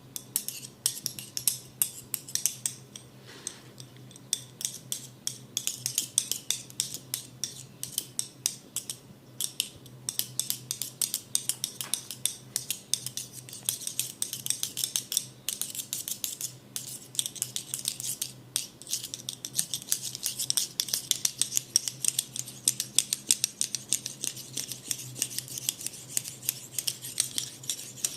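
Rapid, irregular sharp clicks and snips, several a second, from a handheld implement worked close to the microphone, over a steady low hum.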